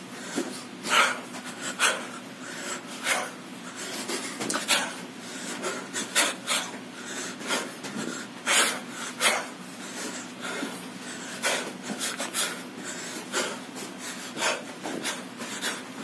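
Shadow boxing: short rasping bursts at an irregular pace, about one or two a second, from a boxer throwing punches and moving his feet on a carpeted floor.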